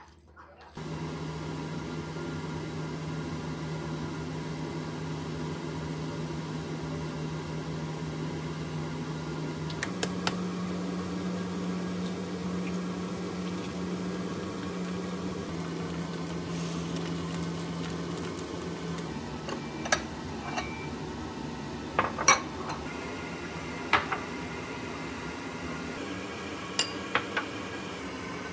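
A steady mechanical kitchen hum whose low tone shifts a few times, with a handful of sharp clinks and taps of utensils against a pan and dishes in the second half.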